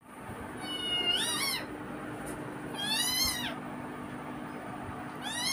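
Cat meowing: three drawn-out, high-pitched calls about two seconds apart, each rising and then falling in pitch.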